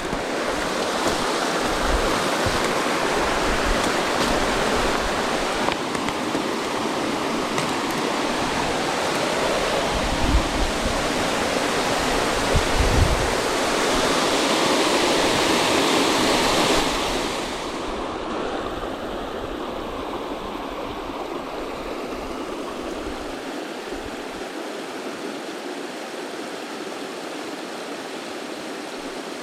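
Waterfall: falling water rushing in a steady, full-range roar that drops in level about two-thirds of the way through. A few dull low bumps sound near the middle.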